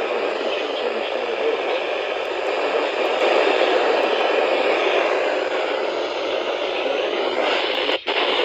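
Radio static: a steady hiss on a weather-radio channel with no voice on it, the mark of weak reception, cut by a brief dropout near the end.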